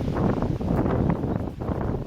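Strong gusty wind blowing across the microphone: a low rumbling noise that swells and dips with the gusts.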